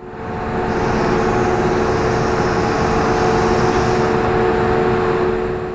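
Steady, loud drone of a ferry's car-deck machinery: ship's engines and ventilation, a dense rush with several fixed humming tones. It fades in at the start and fades out near the end.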